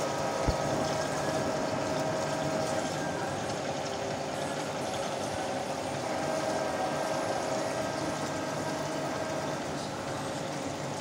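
CNC milling machine's end mill cutting under flood coolant: a steady spindle-and-cutting drone with a whining tone that fades a few seconds in and returns later, over the hiss of the coolant spray. A single short knock sounds about half a second in.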